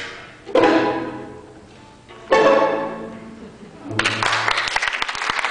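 String quartet of violins and cello playing two short, accented closing chords about two seconds apart, each left to ring and die away. Audience applause breaks out about four seconds in.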